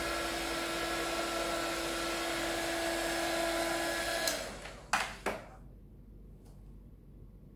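Hot air gun blowing steadily with a fan whine, heating the adhesive that holds a motorcycle headlight lens; it is switched off about four seconds in and winds down, followed by two sharp clicks.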